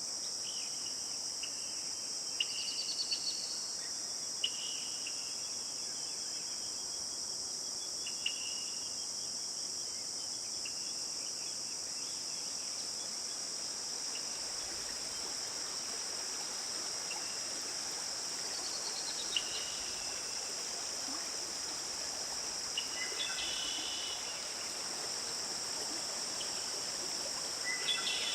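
A steady, high insect chorus of crickets, with short bird chirps and a few quick falling trills heard now and then over it.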